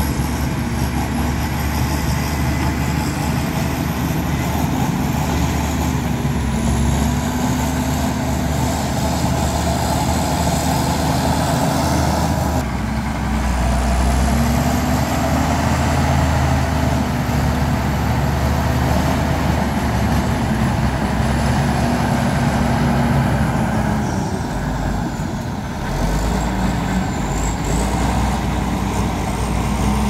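Heavy diesel engine of earthmoving machinery running under work, its pitch rising and falling several times, with a short drop in level near the end before it picks back up.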